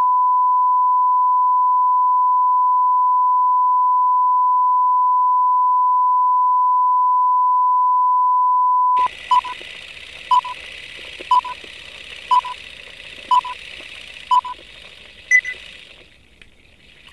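Steady test tone of the kind played with colour bars, held for about nine seconds and then cut off. A hiss follows with short beeps once a second, six in all, then one higher beep, and the hiss fades near the end.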